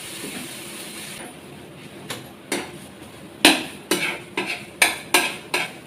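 A metal spatula scraping and knocking against a nonstick frying pan, about ten quick strokes, as the thick cooked sandesh mixture is worked in it. A faint steady hiss stops about a second in.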